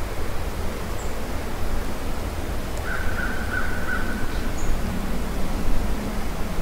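Steady low rushing wind noise on the microphone. A harsh, flat crow-like call lasts about a second and a half midway through, with a few faint, high, short bird chirps.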